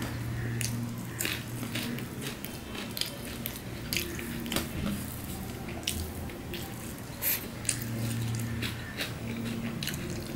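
Wet eating sounds: fingers mixing rice with dal and mashed taro, and open-mouthed chewing with many short smacking clicks. A low hum comes in at the start and again near the end.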